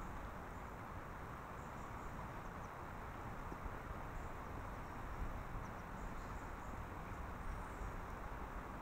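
Faint, steady outdoor hiss with a low rumble, and scattered faint, short, high-pitched ticks.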